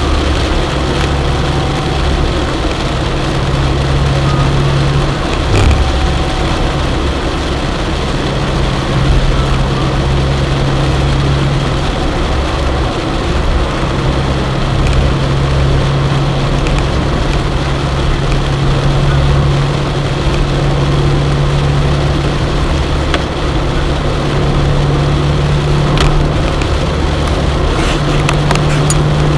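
Car engine and road noise inside the cabin: a steady low drone under an even hiss, with a few faint ticks.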